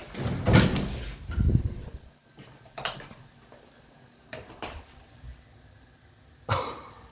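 Objects being handled in a storage room: a run of clunks and scrapes in the first two seconds, then a few separate knocks.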